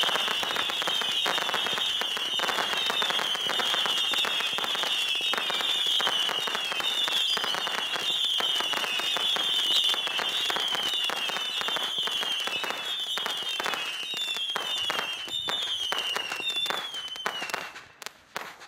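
Saturn missile battery firing a continuous barrage: many overlapping whistles, each falling slightly in pitch, over a rapid stream of small pops and reports. Near the end the barrage thins to a few last bangs and stops.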